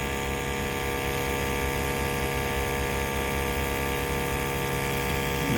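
Steady mechanical hum of a running motor, an even drone that does not change.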